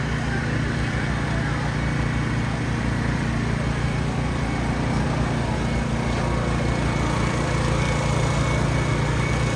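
A small engine running steadily at an even pitch, a constant low drone with no rise or fall, beside the lit procession floats.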